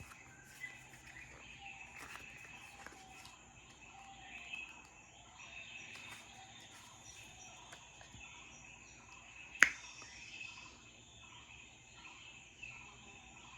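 Recorded jungle night ambience: a steady high insect drone with many short repeated chirping calls. One sharp click stands out a little under ten seconds in.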